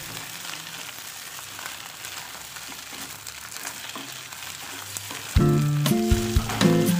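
Scrambled fish roe sizzling in a kadai while a wooden spatula stirs and scrapes it, with small clicks of the spatula on the pan. About five seconds in, background music with a beat comes in, louder than the frying.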